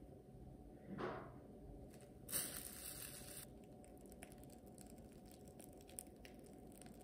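Faint handling sounds: a soft knock about a second in, then a rustling crinkle lasting about a second as a plastic piping bag is handled and squeezed to pipe buttercream, followed by a few faint clicks.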